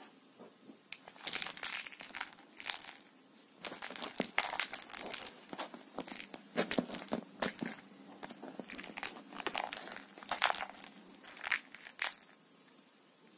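Tabby cat wrestling a fur toy mouse on a woven fabric bedspread: irregular scratching and rustling of claws and paws against the cloth and the toy, in bursts from about a second in until near the end.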